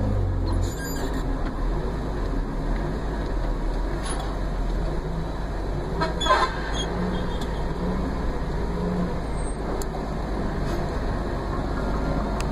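A vehicle driving along a road: steady engine and road noise with a low rumble. About six seconds in there is one short toot.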